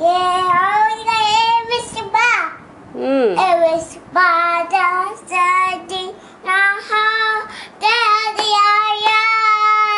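A toddler boy singing in a high voice: a string of drawn-out sung syllables with sliding pitch and short breaks, ending on one long held note.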